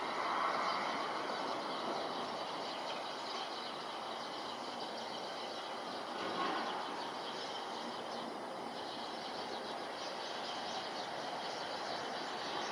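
Engines of a Fuji Dream Airlines Embraer regional jet on landing approach, making a steady wash of jet noise with a faint high whine.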